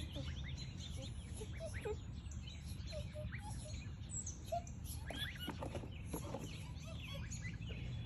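Ducklings peeping: a scattered string of short, high peeps over a steady low background hum.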